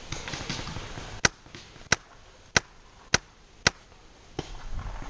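Paintball marker firing five shots in a row, a little over half a second apart, with rustling of leaves and gear just before them.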